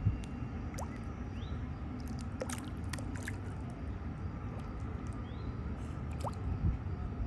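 Bluegill taking food at the water surface: small pops, plinks and splashes, with a quick cluster of clicks and pops about three seconds in, over a steady low rumble.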